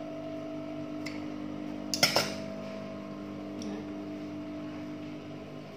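Industrial sewing machine motor humming steadily at idle, with a short metallic clatter about two seconds in and a fainter click a second earlier as the fabric and tools are handled.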